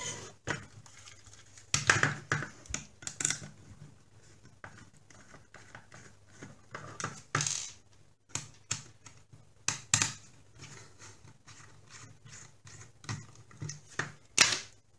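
Irregular clicks, knocks and scrapes of a hard plastic bird-shaped smoke alarm being worked with a screwdriver and handled on a wooden tabletop, with sharper knocks about 2 seconds in, around 10 seconds and near the end.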